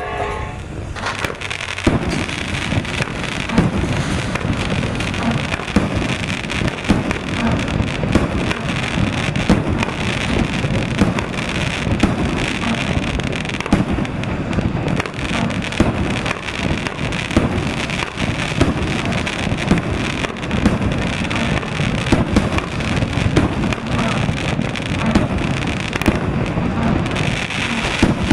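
A 25-shot Thunder Rain firework cake firing shot after shot. Dense, near-continuous crackling and popping sets in about two seconds in and keeps going.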